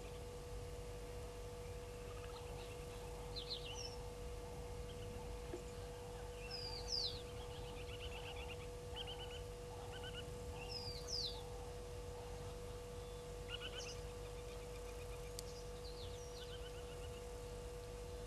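Wild birds calling: a high, sharply falling whistle repeats every three to four seconds, among short runs of quick chattering notes. Under them run a steady faint hum and a low wind rumble.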